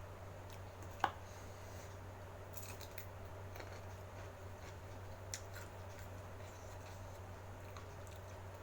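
Close-miked eating sounds: soft chewing and small mouth clicks while eating spicy fried meatballs and noodles. A sharp click about a second in and a smaller one around five seconds stand out over a steady low hum.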